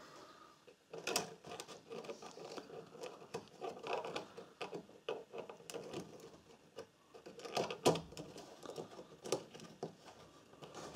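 Honda GX160 recoil starter spring being coiled by hand into its pulley: faint, irregular light clicks and scraping as the spring is twirled in, with a couple of sharper clicks about a second in and near the end.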